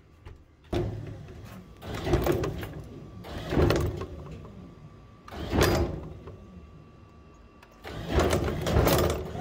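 Electric scissor lift running as its joystick control is worked, a steady low motor hum with about five louder surges as the platform moves.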